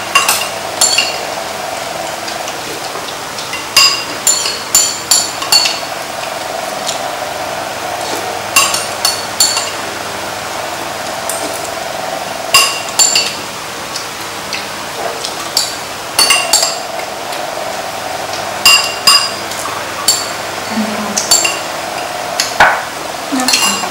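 Spoons and chopsticks clinking against bowls and a metal serving pan while people eat, in scattered clusters of quick, ringing clinks over a steady background hiss.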